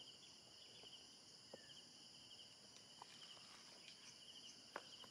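Near silence: a faint, steady insect chorus with a fast pulsing chirp, and a few soft clicks from a drone remote controller being handled.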